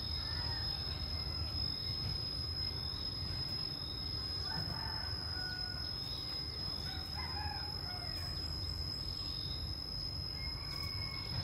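Caged decoy khướu bông cúc laughingthrush calling in short, scattered whistled phrases to draw wild birds, over a steady high insect drone and a low rumble.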